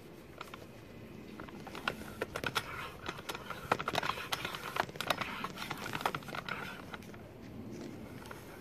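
Floor bicycle pump with a dial gauge being worked stroke by stroke to inflate a bike tyre toward about 20 psi: a short hiss of air with each push, among clicks and rattles from the pump.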